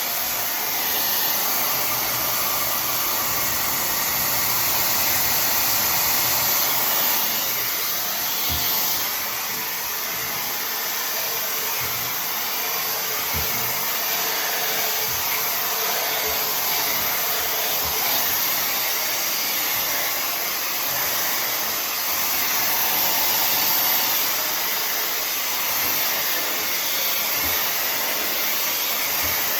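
Tymo Air Hype hair dryer running steadily, a continuous rush of blown air that swells and dips slightly, with a few soft low knocks.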